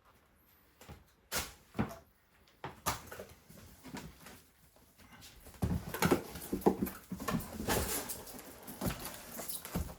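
Handling noises: a scattered series of knocks and clicks, then busier, louder rustling and knocking from about halfway in, as of a cardboard box and its packing being moved about.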